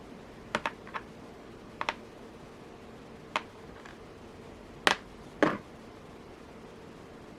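Porcelain beads and small metal bead caps clicking against each other as they are handled and threaded on: about eight short, sharp clicks, the two loudest about five seconds in.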